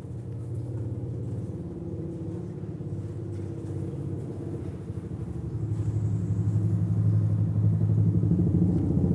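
An engine running steadily with a low, pulsing hum, getting louder from about halfway through.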